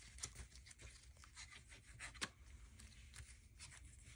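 Faint rustling and rubbing of paper as an envelope is folded and pressed together by hand, with scattered light clicks, one a little sharper about two seconds in.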